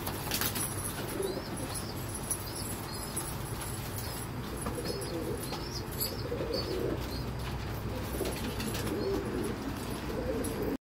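Domestic pigeons cooing, a low wavering coo repeated many times through the second half, with a short flutter of wings at the start and a few faint high chirps.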